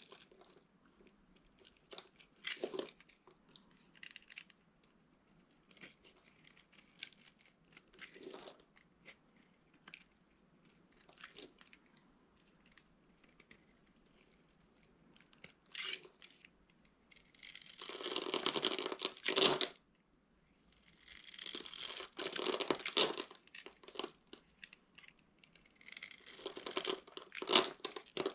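Dry soap being crushed, crunching and crackling: scattered short crackles at first, then three longer runs of dense crunching in the second half, the last the loudest.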